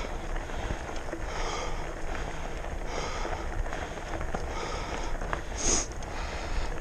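A person breathing hard from the exertion of climbing uphill, a hissing breath about every second and a half, over wind rumbling on the microphone.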